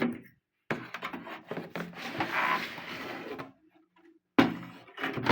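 A plastic-framed quartz wall clock being handled: a few seconds of rubbing and rattling, then a sharp knock a little after four seconds in.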